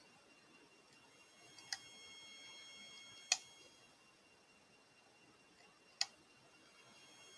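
Lock picks working inside a Mul-T-Lock Integrator padlock: three sharp metallic clicks a second or two apart, the middle one loudest, as the pins are probed and set.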